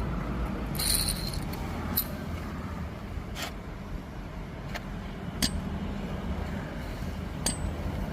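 Steady low vehicle rumble, with half a dozen sharp metallic clinks scattered through it.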